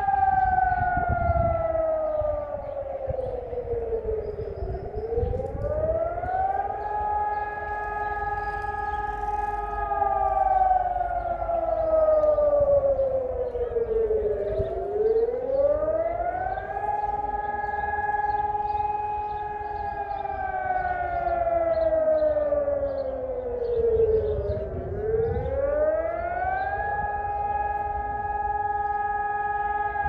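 Civil-defence warning siren sounding the public warning signal as a test alarm: a wail that slides slowly down for about four seconds, swings quickly back up and holds its high note for a few seconds, about every ten seconds, three times over. A low rumbling noise runs underneath.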